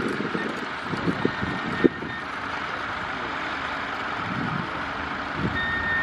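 Vintage farm tractor engine running steadily as it pulls a plough, with a single sharp knock just before two seconds in.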